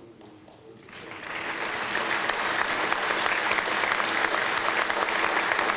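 Audience applause, starting about a second in and building quickly to steady clapping.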